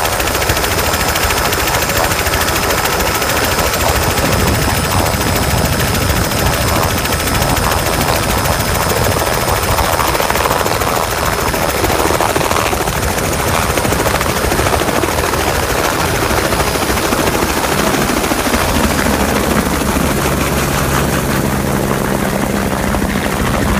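Eurocopter AS350 Écureuil turbine helicopter at lift-off power, its main rotor chopping steadily over the rush of rotor wash, then climbing away. Steady low tones come in over the last few seconds.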